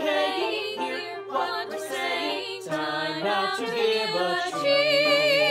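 A mixed group of young men and women singing a musical-theatre ensemble number together, their separate home recordings mixed into one virtual choir. The voices swell into a held note with vibrato near the end.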